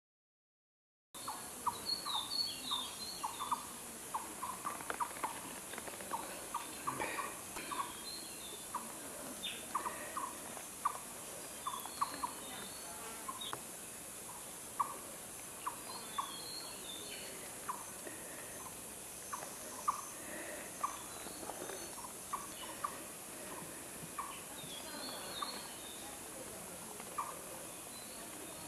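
Outdoor animal chorus that starts about a second in: many short, sharp chirps at about one pitch, with occasional higher twittering calls and a steady high hiss underneath.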